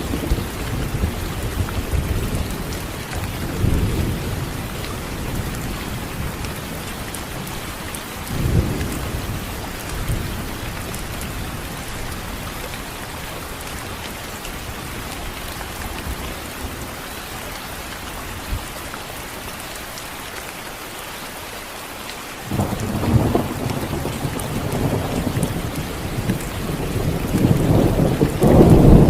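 Thunderstorm: steady rain with rolling thunder. Low rumbles in the first few seconds and a short burst about eight seconds in, then a sudden thunderclap about two-thirds through that rolls into a louder, building rumble near the end.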